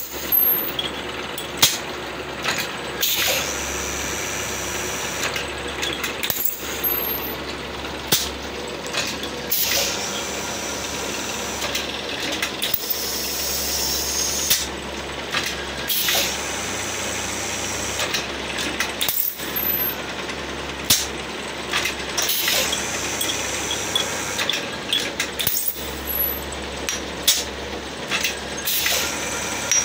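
Small plastic-bottle blow-molding machine running, with a steady mechanical noise broken by frequent sharp metallic clanks and clicks at irregular intervals, and a few brief hissing stretches.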